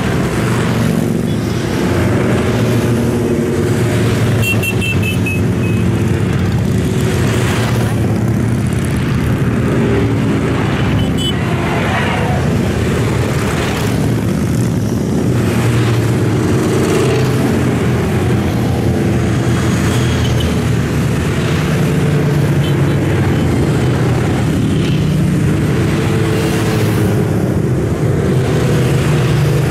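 A steady stream of motorcycles riding past, many engines running at once, with one bike after another swelling up loud as it goes by.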